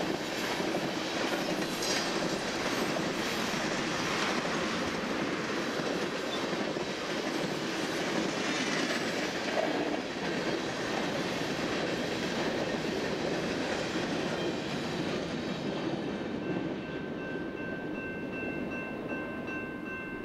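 Loaded freight cars of a manifest train, mostly tank cars, rolling steadily past, their steel wheels clattering over the rail joints. The rolling noise thins out over the last few seconds.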